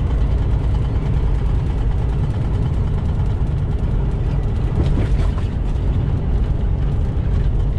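Inside a semi truck's cab at highway speed: a steady low rumble of the engine and road noise.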